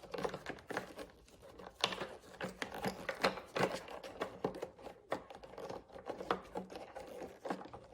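Plastic bulb sockets being seated and twisted into a Lexus RX outer taillight housing: a string of small, irregular plastic clicks and rattles.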